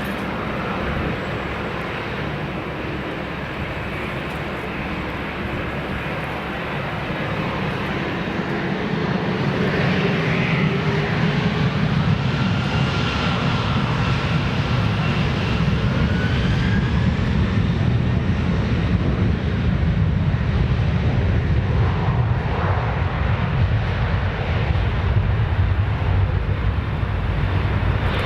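Jet engines of a Boeing 747-400 freighter running with a steady rumble. The rumble grows louder about ten seconds in, with a whine that rises in pitch.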